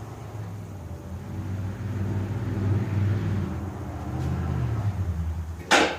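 John Deere 140 garden tractor engine running, swelling in level through the middle, then a single sharp bang near the end.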